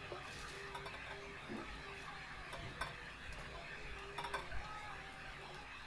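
A metal utensil clicking and scraping against a wire-mesh roaster on a gas stove as green chillies and garlic are turned over the flame: a few light clicks, the loudest about four seconds in, over a faint steady hiss.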